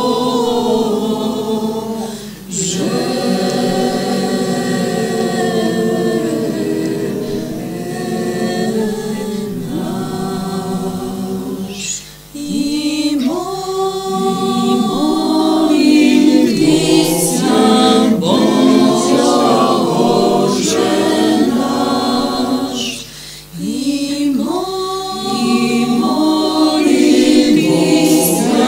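Choir singing a cappella, phrase after phrase, with brief breaks between phrases about two, twelve and twenty-three seconds in.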